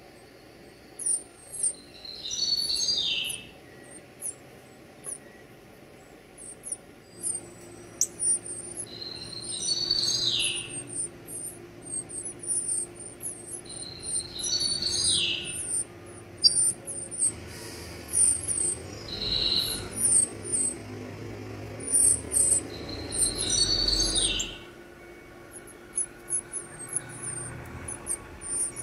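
Birds calling: a steady run of high, thin chips, with a louder whistled note sliding down in pitch about every five seconds.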